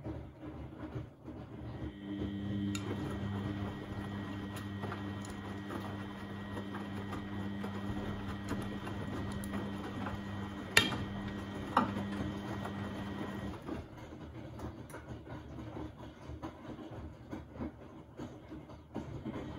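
Beko WMB71642W washing machine drum turning during the wash phase of a synthetics 30° quick wash: the motor starts about two seconds in with a steady hum and a high whine, runs for about ten seconds with a couple of sharp clicks, then stops as the drum pauses between turns.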